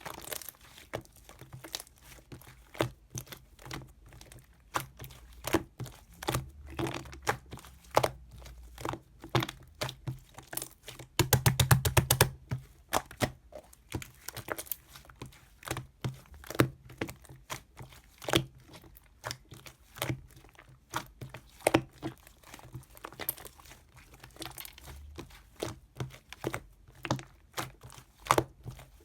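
Irregular sharp clicks and taps at close range, one or two a second, with a quick rapid flurry of clicks about eleven seconds in.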